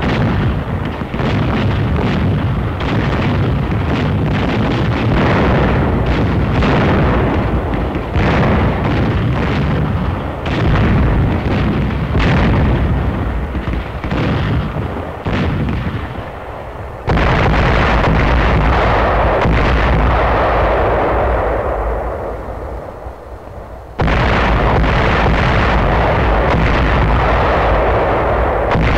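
Battle sound on an old film soundtrack: a dense run of artillery and gunfire blasts, irregular and overlapping. About two-thirds of the way in it switches abruptly to a steady rumbling roar that fades away, then cuts back in loud a few seconds later.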